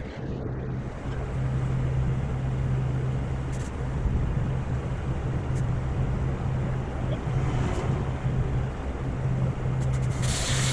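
An engine running steadily at a constant speed with a low hum, with a rush of hissing noise joining it near the end.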